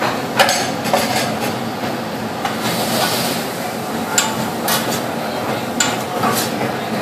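Metal spatulas clacking and scraping on a steel teppanyaki griddle as diced meat and green peppers are tossed, with a steady sizzle underneath. The sharp clacks come at irregular intervals all through.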